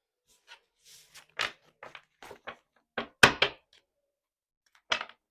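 Tarot cards being handled on a table: a string of short taps and slaps, the loudest about three seconds in and another near the end.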